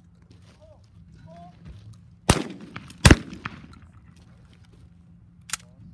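Shotguns fired at clay targets on a trap line: two loud shots about three quarters of a second apart, a little over two seconds in, each trailing off in echo, then a shorter, quieter bang near the end.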